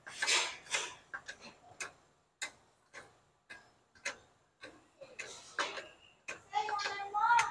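Hand-operated fluid transfer pump pushing automatic transmission fluid up a hose into the transmission fill port, clacking with each stroke at about two strokes a second. A couple of short hissing bursts, and a short rising squeak near the end.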